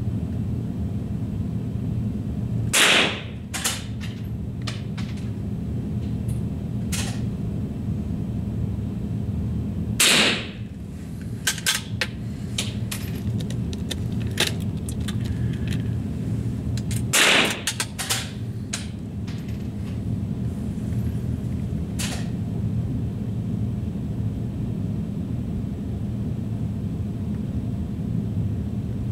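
Rifle fired three times, about seven seconds apart, each shot followed by a few lighter clicks, over a steady low hum.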